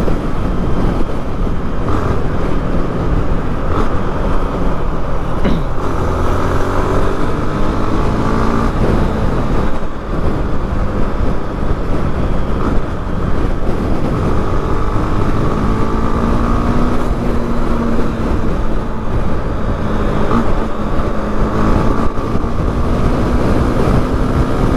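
Honda Twister motorcycle being ridden in slow traffic. The engine note climbs in pitch as it speeds up, twice, over a steady loud rumble of wind and road noise.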